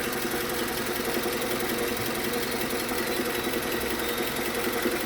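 Suzuki Grand Vitara's J24B 2.4-litre four-cylinder engine running steadily with a fast, even knock from the engine bay, louder from under the bonnet than from below the car.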